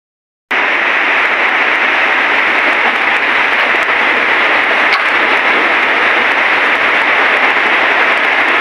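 Loud, steady, even hiss-like noise, like rushing air or heavy rain, that starts abruptly about half a second in after a moment of silence and holds unchanged, with one faint click near the middle.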